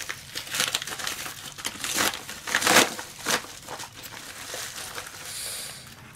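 Yellow padded paper mailer being torn open and handled, a run of irregular crinkling rips and rustles with the loudest about three seconds in. Near the end comes a smoother, softer rustle as the paper-wrapped contents are pulled out.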